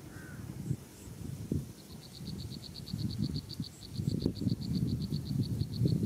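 A rapid, even run of short high chirps from an animal, about eight a second, starting about two seconds in, over irregular low rustling or knocking that is loudest near the end.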